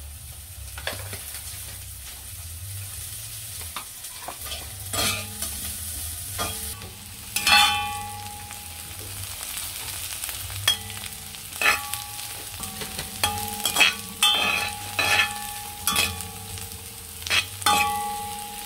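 Onions, scallions and pepper frying in oil in a metal wok, sizzling steadily. From about five seconds in, a metal spoon stirs and scrapes them, knocking against the wok a dozen or so times, each knock leaving the wok ringing briefly.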